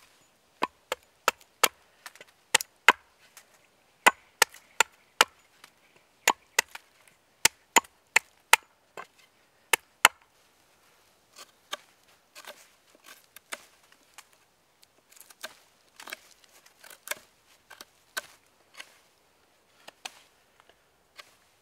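Hatchet blade chopping into a wooden stick braced end-down on a stump, shaping its end. Sharp, loud chops come about two a second for the first ten seconds, then lighter, softer cuts follow.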